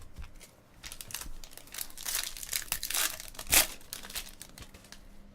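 Trading-card pack wrapper being torn open and crinkled by hand, a dense crackle with one sharp snap about two-thirds of the way through.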